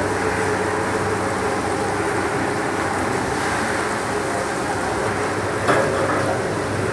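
Snack production line machinery running: a steady mechanical drone with a constant hum, and one sharp knock near the end.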